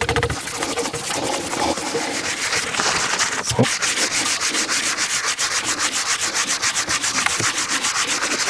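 Thinned wood sealer being rubbed by hand into a multiplex plywood panel, a steady scrubbing made of quick back-and-forth strokes, several a second.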